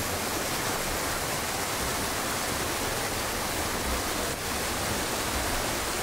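Steady rush of running water from a shallow mountain stream and a small waterfall, with a brief dip about four seconds in.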